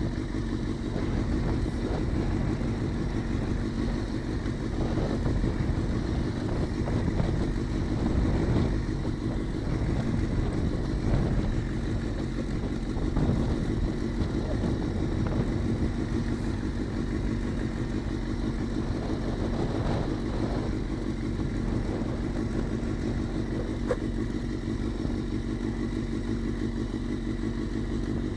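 Suzuki GSX-R600 sport bike's inline-four engine running steadily, swelling slightly in level a few times.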